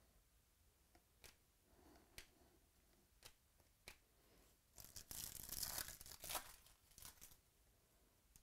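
A trading-card pack wrapper being torn open, a crinkly tearing for about two seconds past the middle. Before it come a few light clicks of cards being handled.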